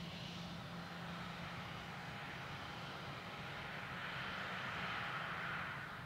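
Airbus A319 jet engines running, a steady rushing sound with a low hum. It grows louder about four seconds in, then falls away sharply at the end.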